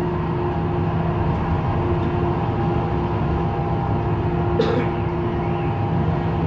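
Duewag/Siemens MGT6D low-floor tram running at a steady speed, heard on board: a steady rumble of wheels on rails with a constant motor hum. A short sharp squeak comes about two-thirds of the way through.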